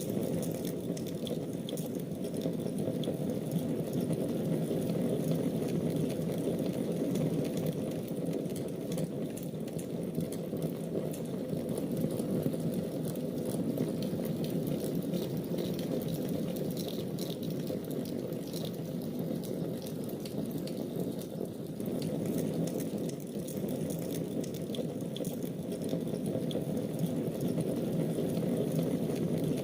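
Fire burning in a fireplace: a steady low rushing with scattered small crackles throughout.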